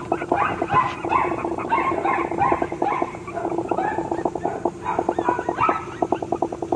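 Yorkshire terrier puppies whimpering: short, high calls repeated about twice a second.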